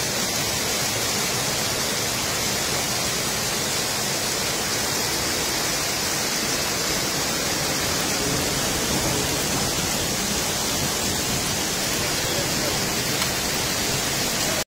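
Muddy floodwater rushing in a torrent down a town street, a steady, unbroken rush of water.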